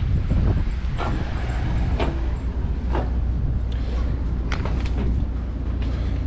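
Footsteps on perforated steel stair treads: several knocks about a second apart, over a steady low rumble of wind on the microphone.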